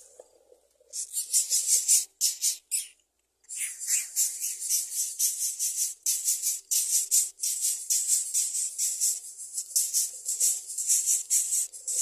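Greater coucal nestling begging with a fast run of harsh, hissing rasps, several a second, as the adult arrives with food; there is a short break about three seconds in.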